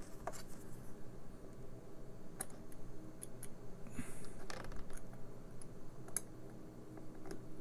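Faint, scattered small clicks and scrapes of a small screwdriver working a tiny screw in a Siemens Teneo M+ hearing aid. The screw spins but won't come out. A brief hiss about four seconds in.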